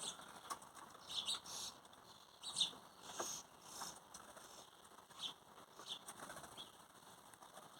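Small garden birds at feeders giving short, high chirps, scattered and faint, a few each second at most.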